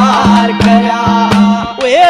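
Haryanvi ragni music between sung lines: a hand drum striking several times a second under a steady held drone, with a wavering melody line above.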